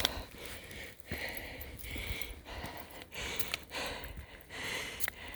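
A hiker breathing hard while climbing a steep trail, with breaths in quick, even succession about once a second.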